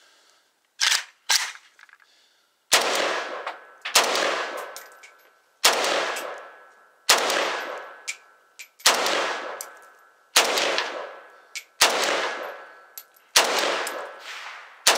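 Norinco MAK-90 semi-automatic AK-pattern rifle in 7.62x39mm fired in slow single shots: nine loud shots about a second and a half apart, each followed by a long fading echo. Before the first shot come two short metallic clacks as the action is worked by hand.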